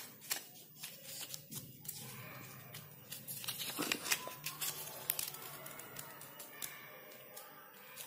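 Faint handling noise of a small DC motor being fitted into a cut-out craft-kit block: scraping and rubbing with scattered sharp clicks and knocks of the parts against each other.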